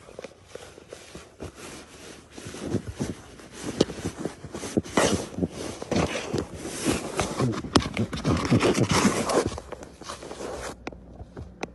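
Paper bag crinkling and rustling as a cat pushes its face and paw into it, with irregular scratches and crackles that grow louder about two seconds in.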